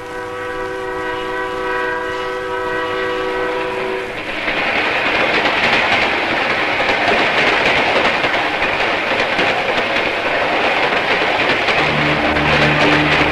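Train horn sounding a steady multi-tone chord for about four seconds, then a train running past with a loud rushing clatter. Low steady tones come in near the end.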